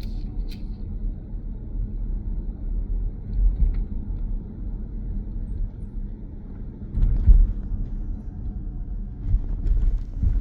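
Road and tyre rumble inside the cabin of an electric car while driving, with no engine note. The rumble swells twice, about seven seconds in and again near the end.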